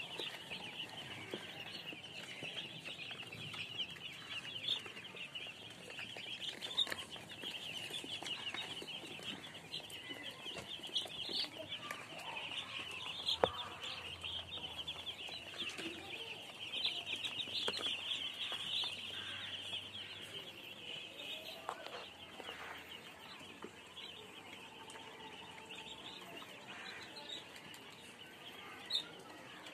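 Many baby chicks peeping at once, a dense chorus of short high-pitched chirps, with a few sharp knocks about halfway through.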